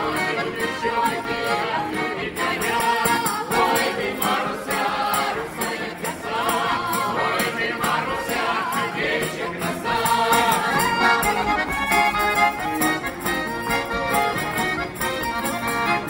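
Mixed folk choir of men and women singing a Russian Cossack song in unison and harmony, accompanied by button accordion, acoustic guitar and tambourine, with the tambourine jingling in a steady rhythm.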